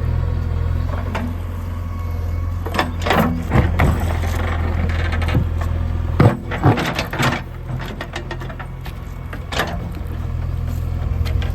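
JCB 3DX backhoe loader's diesel engine running steadily while stones knock and scrape against the bucket. About six seconds in the engine note drops, amid a run of sharp knocks.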